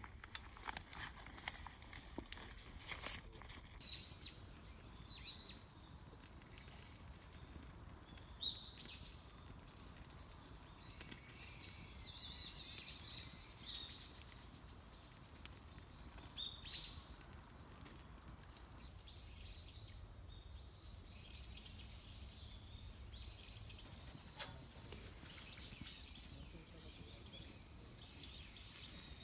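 Faint birds calling on and off over a low steady rumble, with one sharp click near the end.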